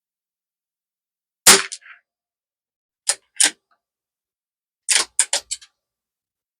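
Bergara B14R bolt-action .22 rimfire rifle being handled: one sharp crack about a second and a half in, then two metallic clicks of the bolt being worked open, and a quick run of four clicks as it is run forward and locked.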